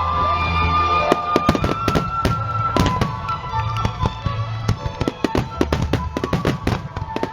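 Fireworks bursting and crackling in quick succession, a dense run of sharp pops that thickens from about a second in, over music with held tones and a low bass.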